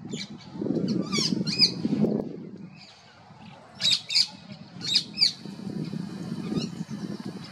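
Rose-ringed parakeet giving short, sharp squawking calls, a few in quick succession about a second in and again around four to five seconds in, over a low rumbling background noise.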